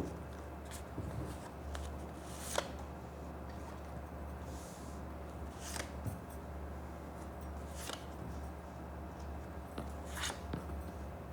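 A deck of Cigano fortune-telling cards being shuffled by hand: soft papery swishes every two to three seconds, over a low steady hum.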